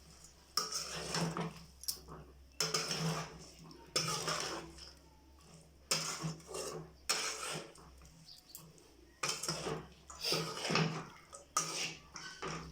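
Metal cooking pot, lid and spoon clattering against each other in about eight sharp clinks spaced a second or two apart, as the simmering curry is handled and covered.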